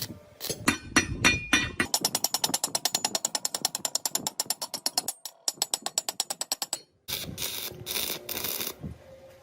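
A rapid, even run of mechanical ratcheting clicks, about ten a second, after a few irregular knocks, breaking off briefly once. Near the end come several rubbing strokes.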